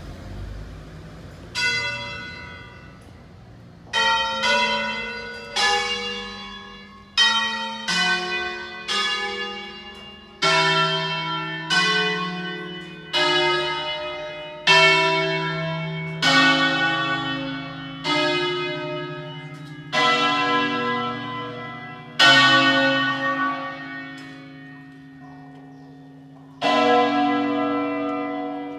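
Church bells of an eight-bell tower struck one at a time in a programmed melodic sequence, an automated 'concerto' on the bells. Each strike is on a different pitch and rings on as the next comes, one every half second to two seconds, with a pause of a few seconds before a last strike near the end.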